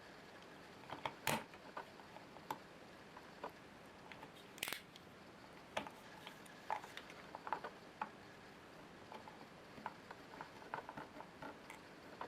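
Small plastic clicks, taps and a brief scrape from a Canon CLI-551 ink cartridge being handled and prised apart. The sounds are scattered and irregular, with a sharper click about a second in and a short scrape near the middle.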